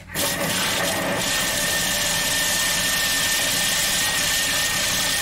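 Thermomix food processor's motor running at speed 5 for a five-second chop, its blades whirring through halved mushrooms and spring onion stems with oil in the steel bowl. A loud, even whir with a steady high whine, starting just after the opening.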